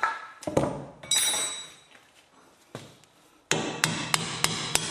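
A few metallic knocks and a ringing clang in the first second and a half, then, from about three and a half seconds in, a hammer tapping on a steel bolt about three times a second to drive it through.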